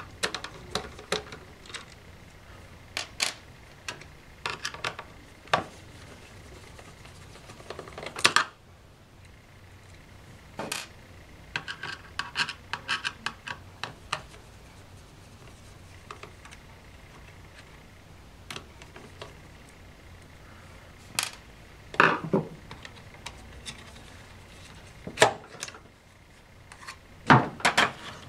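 Irregular clicks, taps and light metallic rattles of a laptop hard drive in its metal caddy being worked loose and lifted out of its bay, in scattered clusters with a quieter stretch in the middle.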